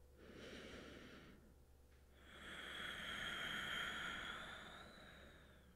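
A person's slow, faint breathing: a short breath, then a longer one starting about two seconds in, with a thin whistle running through it.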